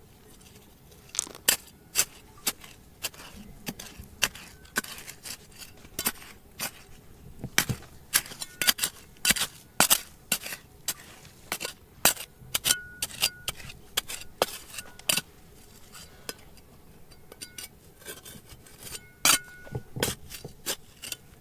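Hard objects clinking and knocking, the sound of a metal tool striking rocks and gravel: irregular sharp strikes, a few of them with a short metallic ring.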